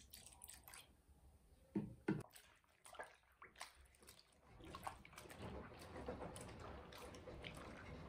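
Faint water sloshing and splashing as clothes are swished by hand in a plastic basin of soapy water, with two sharper splashes about two seconds in.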